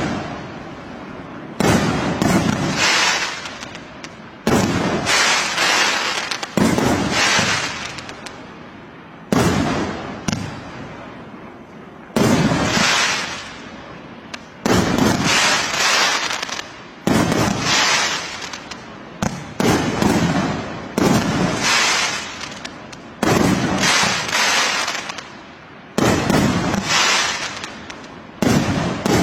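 Fireworks going off one after another, about a dozen sudden bangs every two to three seconds, each trailing off in a crackling fizz.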